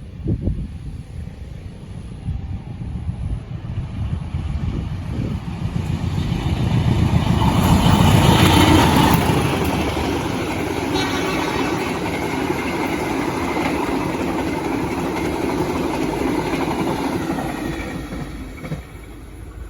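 Train passing close by: its rumble builds over several seconds, is loudest about eight seconds in, holds, and then falls away near the end.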